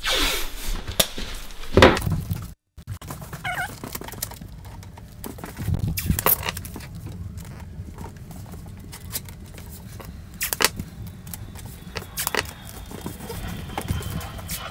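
Yellow painter's masking tape being pulled off the roll and pressed along a dishwasher door's edge: scattered clicks, knocks and rustles of tape handling. The sound drops out briefly about two and a half seconds in.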